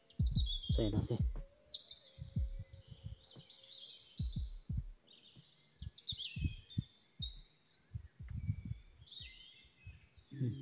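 Small birds chirping in short, high calls and quick glides, over a string of dull low thumps and rustles from hands working the ground and reed stems, with a louder rustle about a second in.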